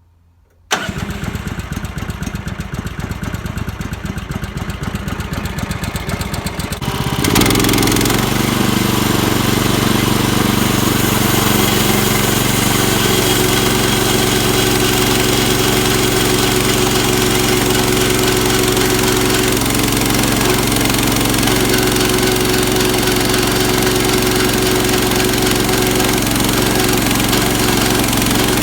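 Portable sawmill's gasoline engine starting about a second in and idling. About seven seconds in it is throttled up to full speed and then runs steadily for the rest of the time.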